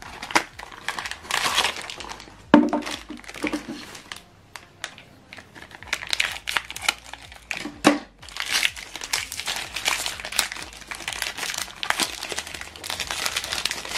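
Packaging of an HP 65 ink cartridge being opened by hand, with plastic and paper crinkling and rustling in irregular crackles.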